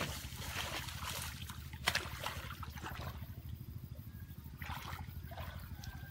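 Water sloshing and splashing as people wade chest-deep through a weedy pond, with a sharp splash about two seconds in and another spell of splashing near five seconds.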